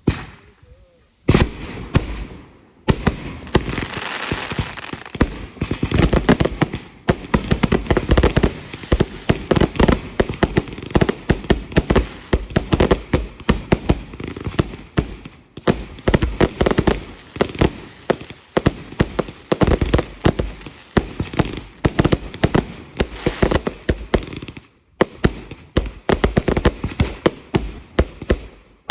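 Fireworks going off in a dense barrage: many rapid, overlapping bangs a second, which break off briefly near the end and then resume.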